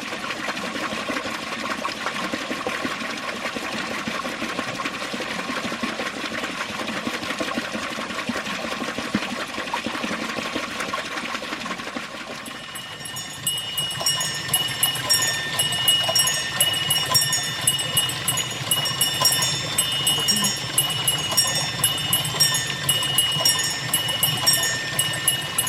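Small water-driven model mechanisms clattering steadily over running water. About halfway through, this gives way to small bells, driven by a water wheel, ringing over and over in an even rhythm.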